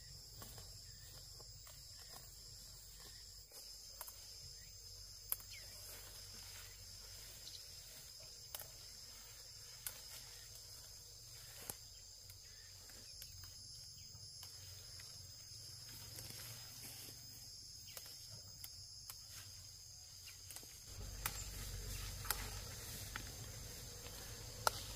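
Steady high-pitched insect chorus, with a few short sharp clicks and rustles from people handling foliage close by. A low rumble comes in near the end.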